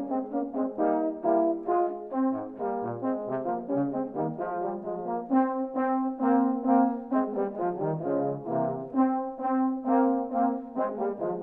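A quartet of euphoniums playing a folk tune in four-part harmony, held chords under a moving melody with notes changing about every half second.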